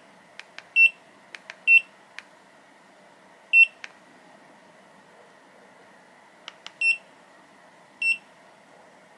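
Inkerma DM-262 laser distance meter beeping as its keypad is pressed: five short high beeps at uneven intervals, with light button clicks in between.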